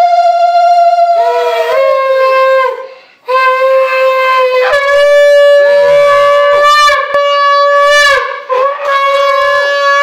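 Conch shell (shankha) blown in long held blasts for the puja, each note lasting several seconds, with brief breaks for breath about three seconds in and again near the end; the pitch steps up slightly partway through the middle blast.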